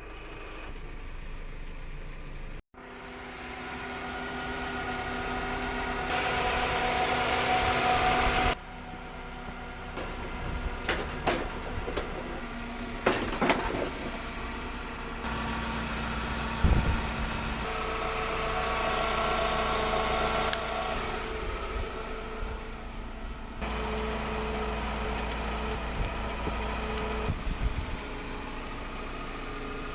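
Car engine running, heard in several short clips that change abruptly, with a few sharp clicks and knocks about halfway through.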